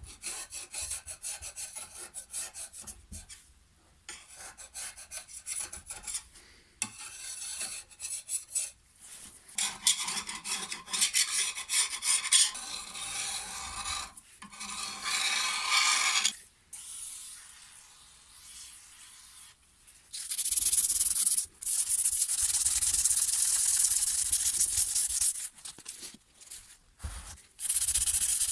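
Fine wet-and-dry sandpaper rubbing on the hedge trimmer's metal top bar to smooth it flush: broken runs of back-and-forth strokes, a short lull, then steady unbroken sanding from about two-thirds of the way in.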